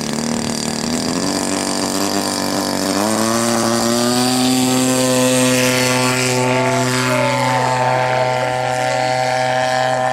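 Engine of a 50cc control-line model airplane running at high revs, its pitch stepping up about one and three seconds in as the plane takes off, then holding steady as it flies.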